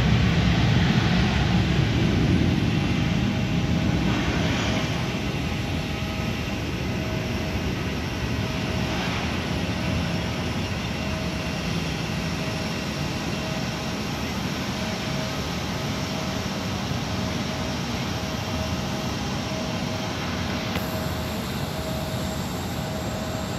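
Twin-engine jet airliner slowing on its landing rollout, engine rumble loudest at first and easing within about five seconds to a steady distant drone. A faint thin whine runs through the later part.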